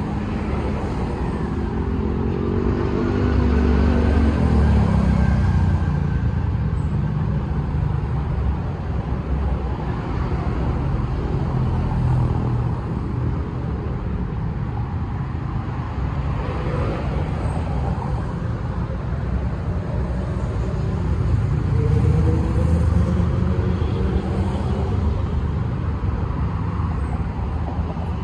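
Road traffic on a busy street: a steady rumble of cars and motorbikes going by. A vehicle passes close with a falling engine note about four seconds in, and another louder pass comes around twenty-two seconds in.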